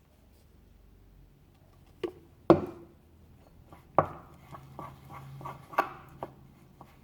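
Scattered sharp knocks and clicks with light scraping, from a spoon, bowl and shampoo bottle being handled while flour and shampoo are mixed into slime. Two louder knocks come about two and a half and four seconds in, followed by a run of lighter ticks and scrapes.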